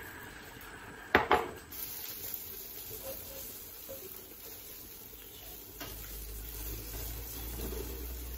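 Beaten egg sizzling in a non-stick frying pan as it is stirred with a silicone spatula. Two sharp clinks about a second in, and a low rumble joins in the last few seconds.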